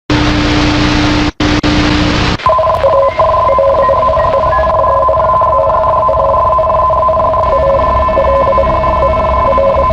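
Emergency alert broadcast: about two seconds of loud static with a low steady hum, broken by a brief dropout, then a steady two-tone alert tone sounding over background noise.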